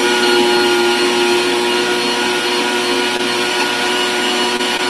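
Electric food grinder's motor running with a steady whine, its auger forcing soft cooked potatoes through the blade as they are pushed down the hopper to rice them.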